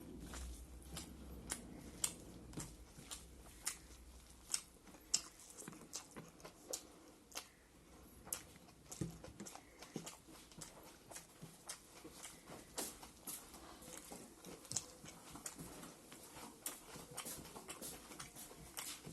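Close-miked chewing of food: irregular mouth clicks and smacks, a few per second.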